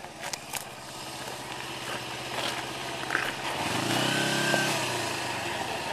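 Motorcycle engine idling steadily; about three and a half seconds in, a passing vehicle's engine grows louder and fades again.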